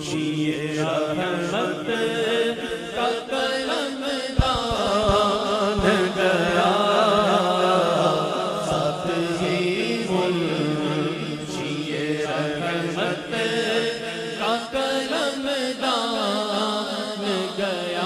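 A man singing an Urdu naat, devotional verse in praise of the Prophet, into a microphone and drawing out long wavering notes, with a steady drone underneath.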